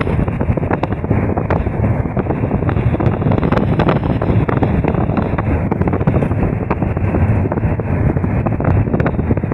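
Bus in motion heard from inside the cabin: a steady, loud drone of engine and road noise with frequent small rattles and clicks.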